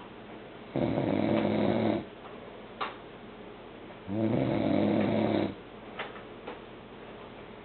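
A man snoring: two snores, each a little over a second long, about three seconds apart, with faint brief clicks in the pauses between them.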